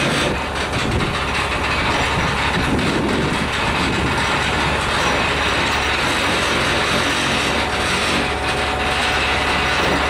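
GNR N2 class 0-6-2 tank locomotive 1744 rolling slowly down off a low-loader trailer with its brakes applied to hold it back, a steady rough mechanical noise over a low hum. Bystanders say it doesn't sound that healthy.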